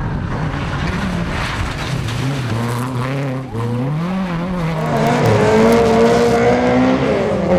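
Rally car engines under hard throttle. The pitch climbs and drops with several gear changes, then a steadier engine note is held at high revs and falls near the end.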